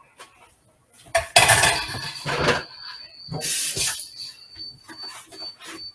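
Kitchenware being handled: irregular clattering and clinking of dishes and utensils, loudest in the first half, then a few lighter knocks.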